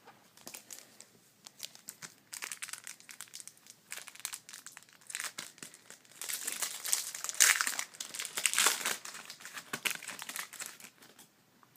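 Foil card pack wrapper being torn open and crinkled by hand: a run of crackling rustles that is loudest from about six to nine seconds in.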